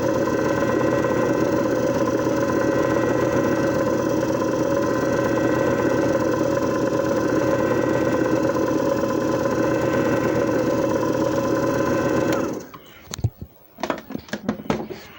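JFJ Easy Pro disc repair machine running with a steady motor hum. The hum cuts off about twelve and a half seconds in, followed by a few clicks and knocks.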